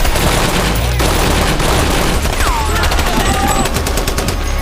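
Dense automatic gunfire from a film battle scene: machine guns and rifles firing rapid, overlapping bursts without a break.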